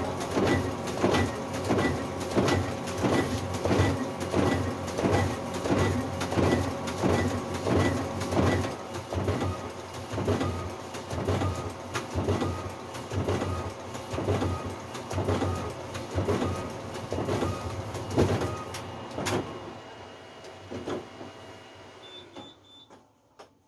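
Ricoh DX2430 digital duplicator printing thick card stock, one regular mechanical stroke per sheet at about one and a half to two a second. The run stops about nineteen seconds in, leaving only a few faint clicks.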